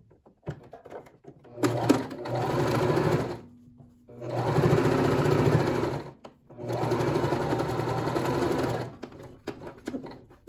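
Electric domestic sewing machine stitching a fabric binding strip onto terry cloth, in three steady runs of a couple of seconds each with short pauses between them, and small clicks of handling before and after.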